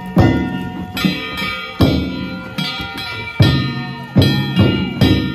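Danjiri festival percussion: taiko drum strikes every half second to a second, with hand-struck kane gongs ringing on steadily between the beats.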